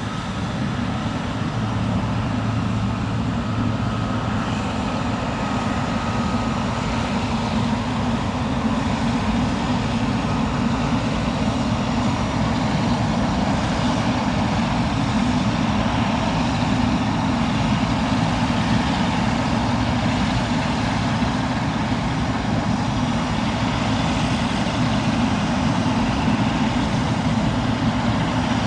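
Steady jet engine noise from a Boeing 777 freighter, growing louder over the first several seconds, then holding steady.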